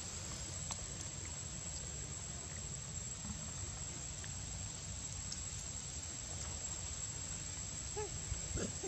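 Quiet outdoor background: a steady low rumble and a steady thin high-pitched tone, with a few faint clicks. About eight seconds in, a baby macaque starts giving short squeaky calls that rise and fall in pitch.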